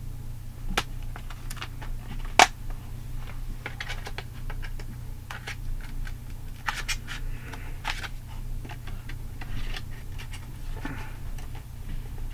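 Plastic DVD cases and discs being handled: scattered light clicks and snaps of the plastic, with one sharper snap about two and a half seconds in and a few brief rustles, over a steady low hum.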